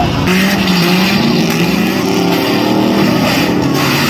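School bus engines running hard under throttle, the engine note rising and falling as they are revved.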